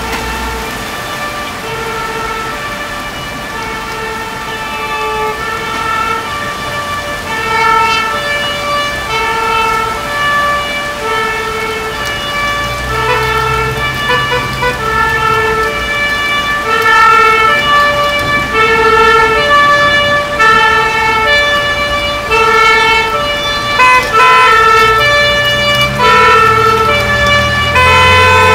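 Fire engine's two-tone hi-lo siren, switching between two pitches about every half second and growing steadily louder as it approaches. A heavy engine rumble comes in briefly midway and again near the end.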